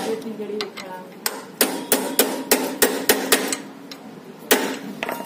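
Metal hammer blows tapping a bearing into the front suspension hub link of an LML Vespa scooter: quick repeated knocks, a few per second, with short metallic ringing, pausing briefly about a second in and again near the end.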